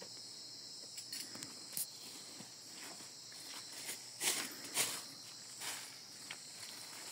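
Night insects, crickets, chirring steadily in a high, even band, with scattered footsteps and handling rustles close by. The loudest are two short thumps about four and five seconds in.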